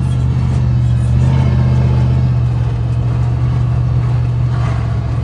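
A car driving at a steady speed: a constant low engine and road drone.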